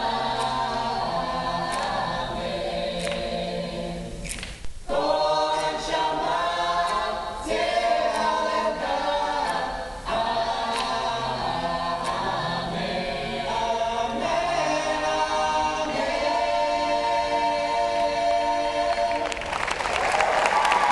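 Mixed-voice a cappella choir singing in close harmony, with a brief break about five seconds in. Near the end the final chord is held as applause breaks out over it.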